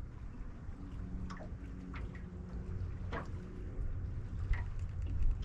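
Wind rumbling on the microphone out on an open lake, with water lapping against a boat hull and a few faint splashes.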